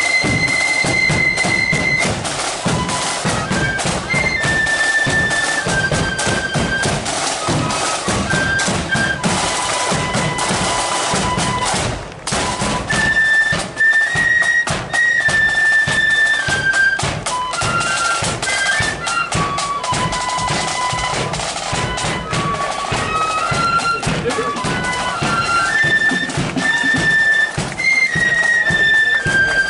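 Marching flute band playing a tune in unison on flutes, with drums beating a steady marching rhythm underneath. There is a brief break in the tune about twelve seconds in.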